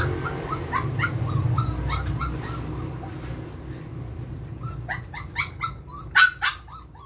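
Six-week-old puppies whimpering and yipping in a string of short, high cries, growing sharper and louder about five seconds in.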